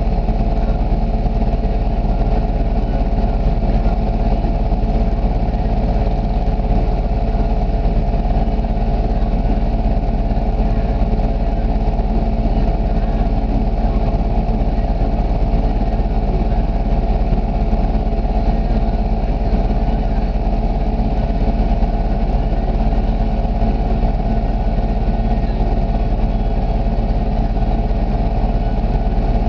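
ATV engine idling steadily.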